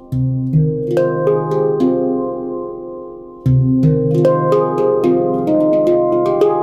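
Veritas Sound Sculpture handpan tuned to F low Pygmy, played with bare hands. A deep bass note is struck at the start and again about halfway, each ringing on under lighter, higher notes, with the quicker tapping getting busier in the second half.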